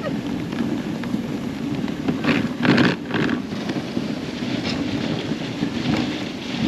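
Dog sled runners rumbling and scraping steadily over a packed snow trail as the huskies pull the sled along, with two louder scrapes a little over two seconds in.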